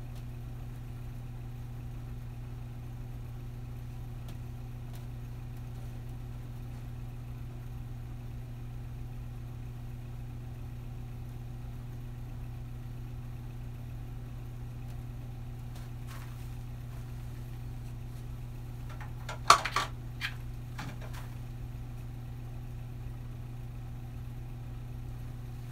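A steady low hum, like a motor or appliance running, with a brief cluster of sharp knocks about three-quarters of the way through.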